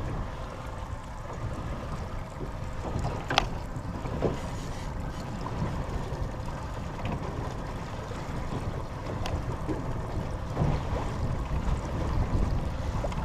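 Wind buffeting the microphone on a boat at sea, a steady low rumble, with a few sharp knocks, the loudest about three and a half seconds in.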